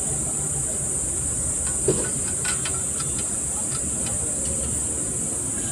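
Light metal clicks and knocks as a truck clutch pressure plate is handled and seated against the flywheel housing, with one sharper knock about two seconds in. A steady high hiss and a low hum run underneath.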